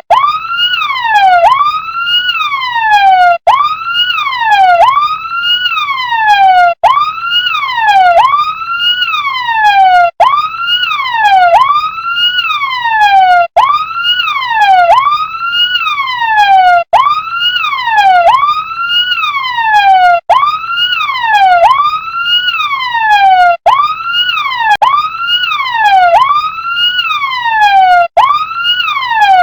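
RC toy fire truck's electronic siren sweeping over and over: each tone jumps up quickly and slides down over about a second, three sweeps at a time, with a brief break about every three and a half seconds.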